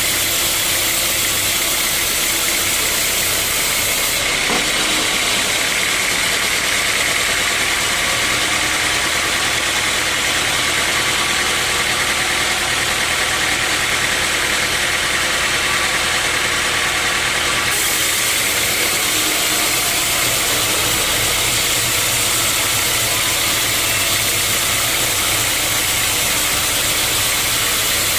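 Sawmill machinery running with a steady, loud mechanical noise. From about four seconds in until about eighteen seconds the sound changes, losing its highest hiss, then returns to how it was.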